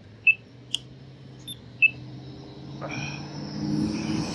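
Four short, high-pitched beeps in the first two seconds. Then a passing vehicle's engine and tyre noise grows steadily louder from about three seconds in.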